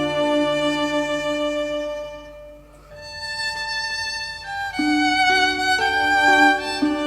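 Violin music: long bowed notes changing pitch every second or so, fading briefly about two and a half seconds in before the playing picks up again.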